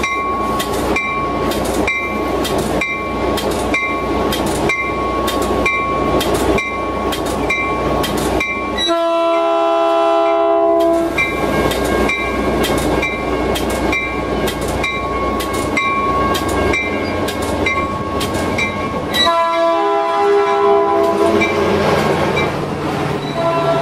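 Grade-crossing warning bell ringing at about two strokes a second as a Caltrain train approaches. The leading cab car's horn sounds a chord for about two seconds roughly nine seconds in, again from about nineteen seconds, and once more near the end, while the low rumble of the train grows as it pulls in.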